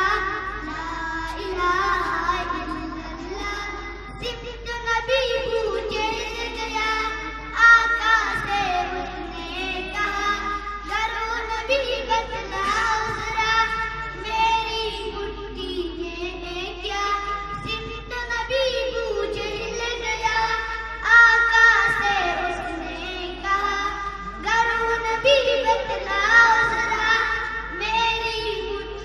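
A young girl singing solo into a microphone, amplified, in long held phrases with a wavering voice.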